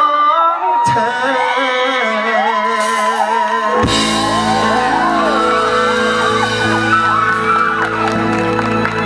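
Live pop-rock concert: a male singer sings into a microphone with light backing and no bass. About four seconds in, the full band of drums, bass and electric guitars comes in under his voice.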